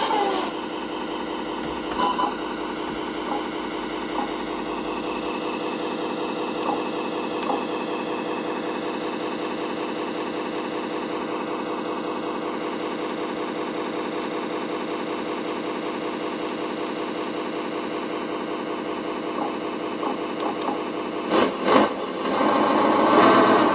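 Synthesised MAN KAT I V8 diesel engine sound from an ESP32 RC sound controller, played through a small speaker, idling steadily. It gets louder in a few short bursts near the end as the throttle is blipped.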